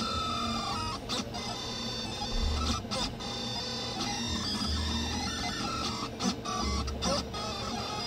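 Delta 3D printer printing: its stepper motors whine in tones that slide up and down in pitch as the print head changes speed and direction, over a steady cooling-fan hum, with occasional short clicks.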